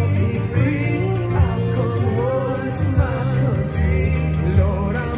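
A song with a singer playing from a Tivoli Audio Model Two table radio system with its Model Subwoofer, with a strong bass under the voice.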